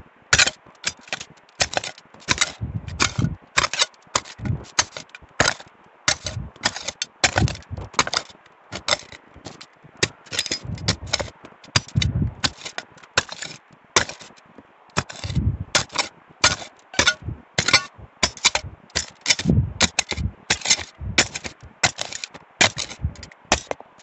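Hand digging tool chopping and scraping into stony soil: irregular sharp strikes, two or three a second, some with a dull thud, as it hits stones in the hole.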